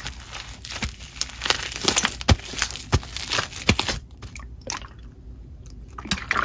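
Blue crunchy microfoam slime with lots of beads being squeezed and worked by hand, crackling and crunching with many small snaps; the crunching thins out to a few scattered clicks after about four seconds.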